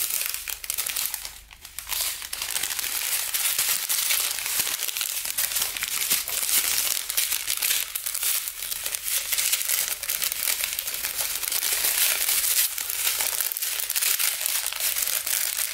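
Clear plastic packaging and small plastic bags of diamond-painting beads crinkling almost continuously as they are handled, with a short lull about one and a half seconds in.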